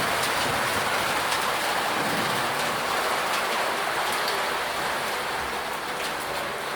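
Heavy thunderstorm rain pouring steadily, with faint scattered ticks of small hailstones striking.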